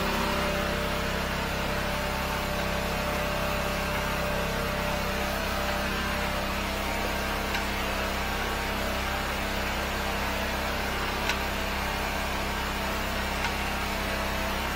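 The engine of a 13-horsepower high-pressure drain jetter runs at a steady pitch under load while the jetter hose is worked into the drain, with a couple of faint ticks.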